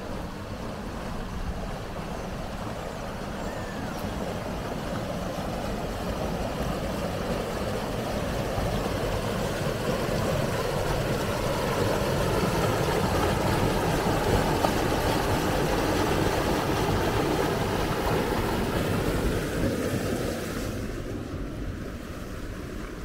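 Water pouring over a low stone weir on a stream: a steady rushing splash that grows louder toward the middle, then drops off near the end.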